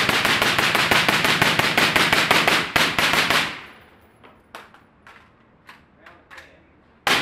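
Rapid gunfire from a rifle at an indoor range, many shots a second. It stops about three and a half seconds in, leaving a few faint sharp pops, and rapid fire starts again just before the end.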